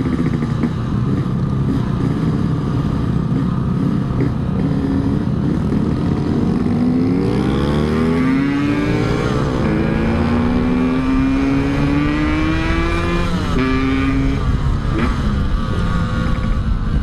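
Yamaha RX-King's single-cylinder two-stroke engine under way, steady at first, then rising in pitch as it accelerates about halfway through, with shifts up through the gears near the end.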